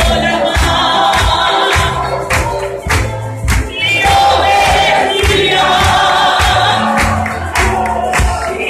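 A large congregation singing a worship song together over live band accompaniment, with bass notes and a steady drum beat.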